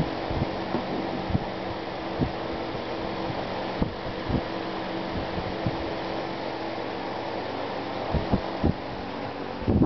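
Irregular soft thumps and knocks, about a dozen, from a broom head and kittens' paws bumping on a hardwood floor during play, over a steady hum.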